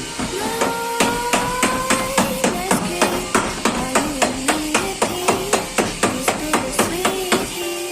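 Hammer beating the dented sheet-steel front panel of a Daewoo Damas van back into shape: a steady run of sharp metallic blows, about three a second, each with a short ring.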